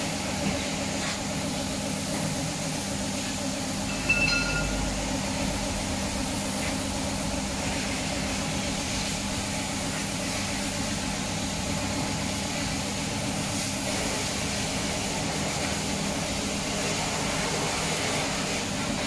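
Steady hum and even hiss of an air compressor supplying a gravity-feed spray gun during spray painting. A brief low thump and a short high beep come about four seconds in.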